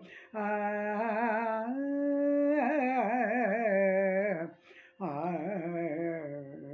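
Carnatic-style devotional bhajan singing: drawn-out syllables with wavering ornamental pitch, in phrases broken by short pauses, over a faint steady tone.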